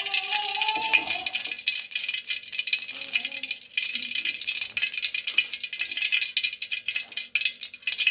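Two teaspoons of cooking oil heating in an aluminium kadai, sizzling and crackling steadily. In the first second or so the metal ladle scrapes briefly against the pan as it spreads the oil.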